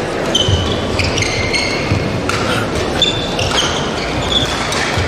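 Badminton rally on an indoor court: shoes squeaking sharply several times on the court floor and rackets striking the shuttlecock, over a steady murmur from the crowd.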